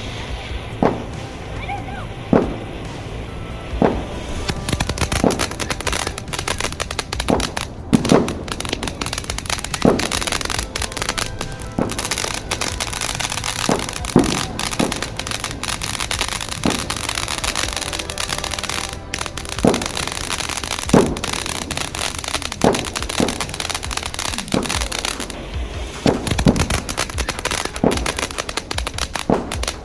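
Fireworks going off: sharp bangs every second or two over a continuous dense crackling.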